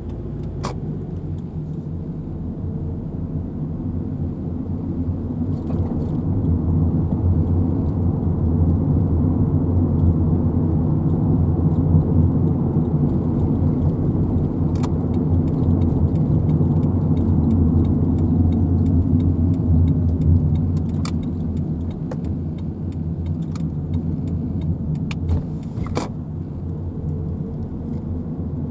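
Motor vehicle running with a steady low engine-and-road rumble that swells in the middle and eases off again, with scattered small rattles and clicks.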